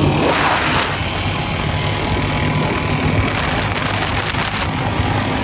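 Royal Enfield Bullet 350 single-cylinder motorcycle engine running at a steady, unchanging pitch, with a brief rush of noise about half a second in.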